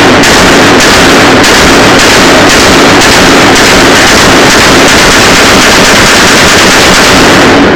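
Rapid gunfire from an AR-15 pistol, so loud that it saturates the recording into one continuous distorted blast of noise in which single shots are barely separate. It stops abruptly near the end.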